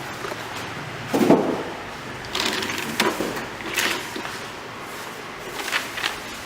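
Offistar WM 31 manual wire-binding machine being worked by hand: a loud clunk about a second in, followed by several shorter clacks and scraping sounds, and two light clicks near the end.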